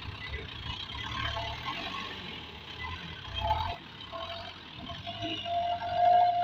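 Diesel engine of a loaded Hino dump truck working as the truck drives through soft, rutted soil; the low rumble drops about four seconds in as it pulls away, and a steady whine comes up and grows toward the end.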